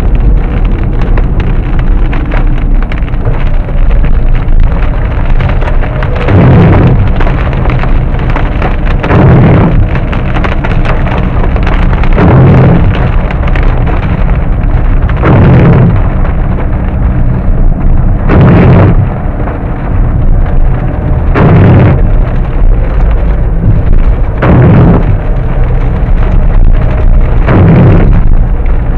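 Hail drumming on a car's roof and windscreen, a loud, dense patter of hailstones. About every three seconds a windscreen wiper sweeps across the glass.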